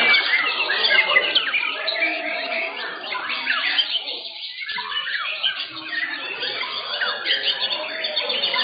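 Several caged white-rumped shamas (murai batu) singing at once, a dense tangle of overlapping whistles and chirps that thins briefly about four seconds in.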